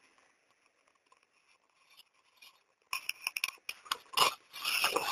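About three seconds of near silence, then a sudden crackling, clicking noise that thickens and grows louder toward the end.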